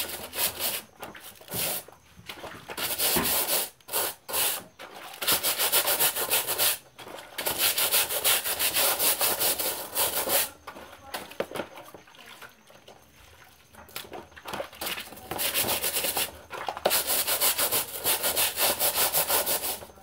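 A scrubbing brush worked in quick back-and-forth strokes over the grille of an Arno electric fan's guard, in several bursts of scrubbing with short pauses between.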